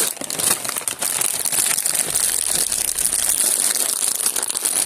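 Plastic candy wrappers crinkling steadily as they are handled.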